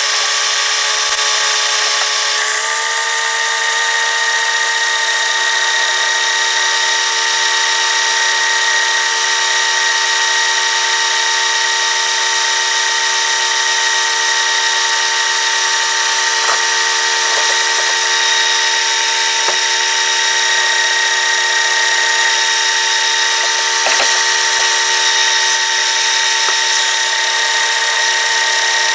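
Metal lathe running steadily while a tool cuts a spinning metal disc, a whine of several steady tones that shifts in pitch once about two and a half seconds in. A few faint knocks come later.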